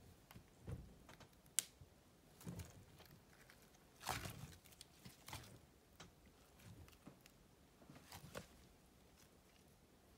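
Faint, sticky clicks and squelches of a glossy slime being pressed and stretched by hand, coming irregularly, with the loudest cluster a little past four seconds in.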